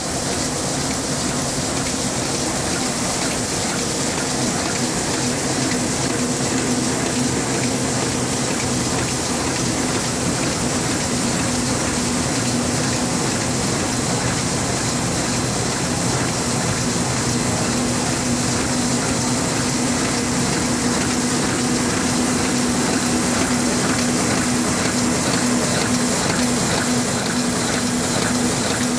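Heidelberg Printmaster PM 46-2 two-colour sheet-fed offset press running steadily: a constant hum under a dense, even mechanical whirr.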